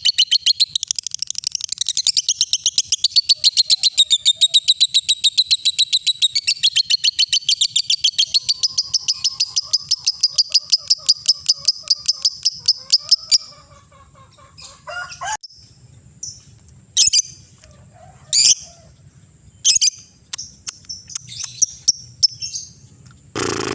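Lovebird singing its long 'ngekek' chatter: a fast, even run of sharp high calls, several a second, that stops a little over halfway through. Only a few short separate chirps follow, with a louder burst at the very end.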